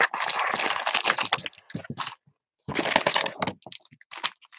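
Foil-wrapped Panini Chronicles trading card packs crinkling and rustling as they are pulled out of the box by hand and stacked, in two spells of crinkling with a few light clicks near the end.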